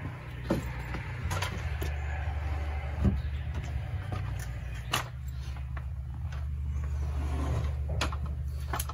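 A wooden 2x4 rafter knocking against the timber frame, several separate sharp knocks as it is set in place, over a steady low rumble.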